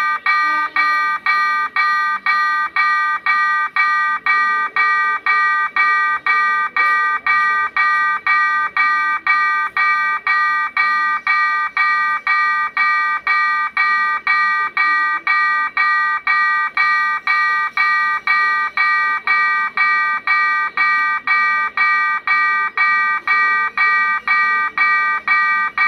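Railway level-crossing warning bell, electronic, ringing in an even, rapid beat of about two rings a second: the crossing signal for an approaching train.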